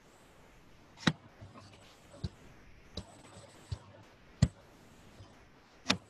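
About six sharp, separate clicks over faint room hiss, the loudest about a second in, halfway through and near the end: computer mouse clicks as the presentation slide is advanced.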